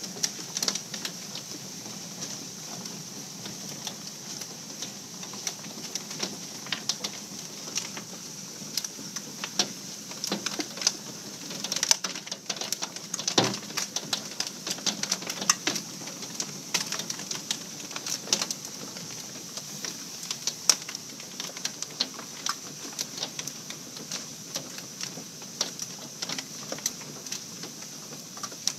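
Pea- to quarter-sized hail pelting a hot tub cover and wooden deck. It makes a dense, irregular clatter of sharp ticks over a steady hiss, with a few harder strikes standing out.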